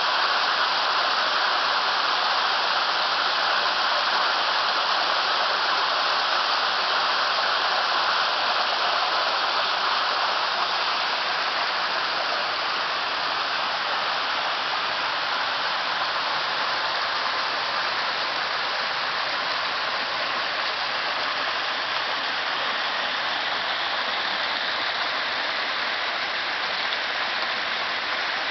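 Water gushing steadily out of a hydroelectric intake's sluice opening onto stone and splashing down over rocks into the stream bed. It is the small minimum-vital-flow release let into the torrent. It becomes a little quieter about ten seconds in.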